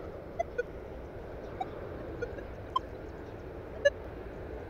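Minelab Manticore metal detector chattering: about six scattered short beeps at varying pitches, the loudest near the end. This is noise falsing from sensitivity set too high, heard as the sensitivity is being stepped down until the detector runs quiet.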